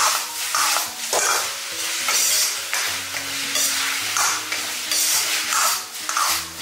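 Shredded chicken with peppers stir-fried in a wok over high heat: a steady sizzle, broken by repeated scrapes and tosses of the food about every half second to a second.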